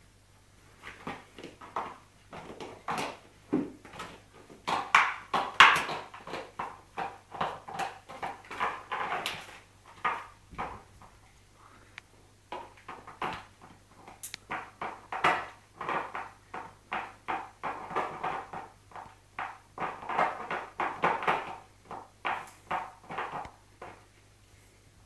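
Dog chewing a clear plastic bottle: irregular crackling and crunching of the plastic in bursts, with a couple of short pauses.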